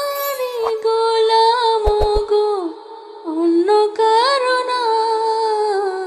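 A woman singing a Bengali gazal, an Islamic devotional song, in long drawn-out notes that bend and slide between pitches.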